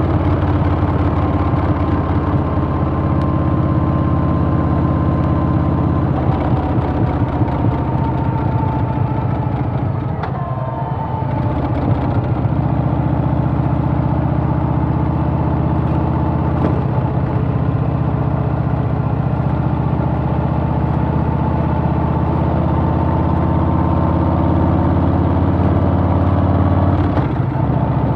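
Harley-Davidson Softail's Milwaukee-Eight V-twin running steadily under way, easing off briefly about ten seconds in before pulling again.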